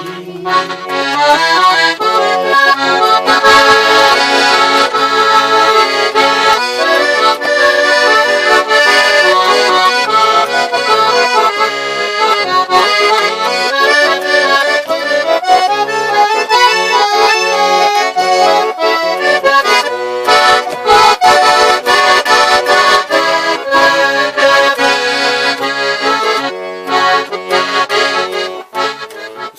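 Accordion playing an instrumental interlude between verses of a song: a melody over a repeating bass-and-chord accompaniment, fading near the end.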